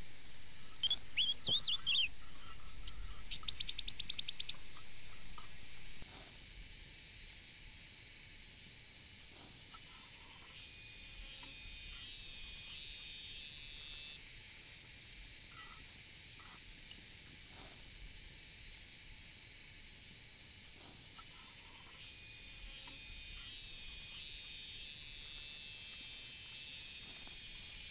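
Outdoor insect chorus droning steadily, with bird chirps about a second in and a fast buzzy trill a few seconds later. The sound drops quieter about six seconds in, and more chirping calls come and go over the steady drone.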